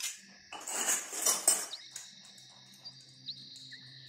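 Miniature stainless-steel toy dishes clinking and scraping as they are handled and set down on a table, in a burst of clatter starting about half a second in and lasting about a second, then quieter handling.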